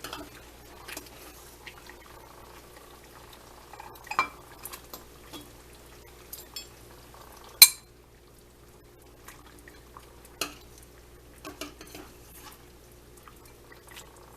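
Utensil clinking and scraping against a pot and bowl as soup is dished up: scattered knocks, with one sharp ringing clink about halfway through.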